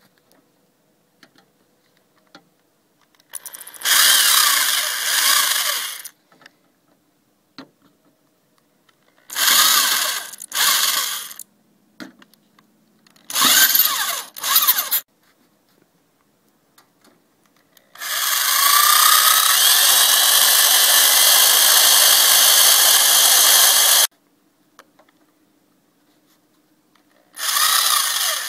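Corded electric drill boring screw holes through 3/8-inch plywood handle pieces, run in several bursts of a second or two, one long run of about six seconds, and another starting near the end.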